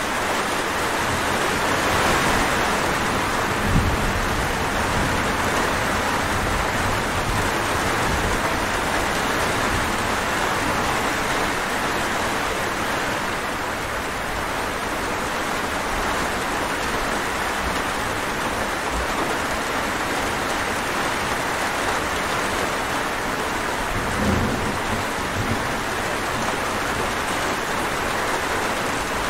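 Steady, dense rainfall. Two brief low thuds or rumbles stand out, one a few seconds in and another late on.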